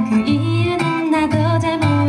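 A woman singing a held, sustained melody over a live-sounding accompaniment of guitar and bass.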